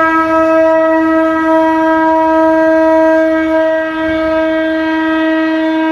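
Conch shell (shankh) blown in one long, steady, unbroken note.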